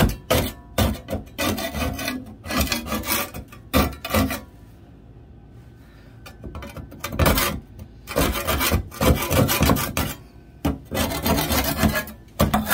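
A brush scrubbing rust and old residue off the threaded pipe stub where the bathtub spout came off, in quick irregular strokes with a short pause about halfway.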